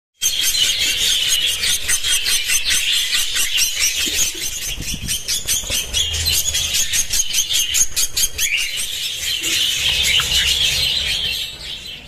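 Budgerigars fighting: a loud, harsh, rapid chatter of high-pitched shrieks and squeals that goes on without a break and dies away near the end.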